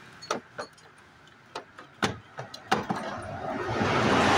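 A series of sharp clicks and knocks as a ratchet and the engine's rubber air-intake hose are handled and pulled loose under the hood, followed by a rushing noise that swells near the end.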